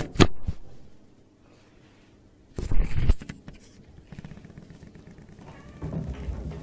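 Cats playing on a wooden floor right at the camera: two sharp knocks at the start as a cat bumps the camera, a louder clattering scuffle about three seconds in, then softer scuffling.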